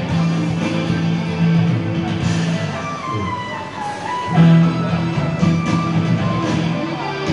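Loud instrumental music, with a lead melody line that dips and climbs back in pitch about halfway through.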